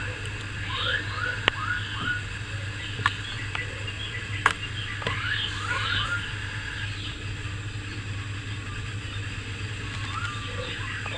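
Steady low hum with scattered runs of three or four short, high, falling chirps and a few sharp clicks.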